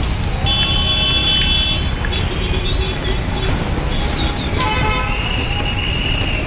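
Low, steady rumble of wind and rushing floodwater on the microphone. Vehicle horns honk over it: one for just over a second about half a second in, and another held for the last two seconds.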